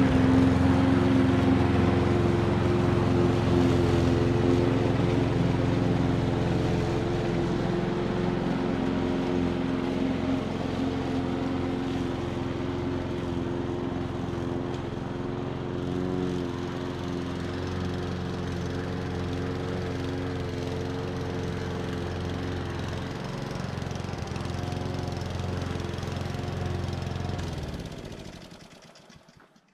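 Hecht petrol walk-behind lawn mower running steadily while cutting grass, growing gradually fainter as it moves away, then dying away near the end.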